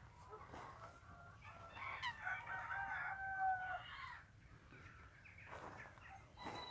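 A rooster crowing once: a single drawn-out call of about two seconds, starting about two seconds in.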